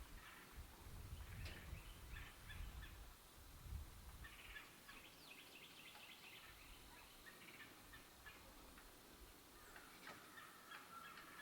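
Faint outdoor bird calls: scattered bursts of quick chattering, rattling notes, with a low rumble during the first few seconds.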